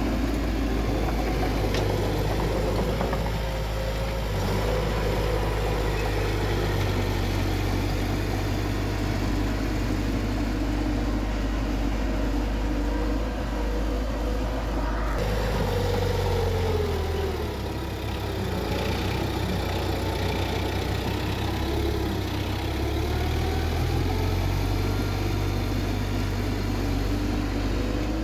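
Bulldozer's diesel engine running steadily, its note dipping and then climbing again about halfway through.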